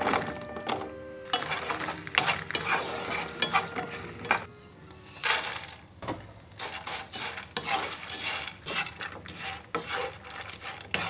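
Shishito peppers and dried baby anchovies sizzling in a non-stick frying pan while a wooden spoon stirs and scrapes them, a quick, uneven series of scraping strokes over the sizzle.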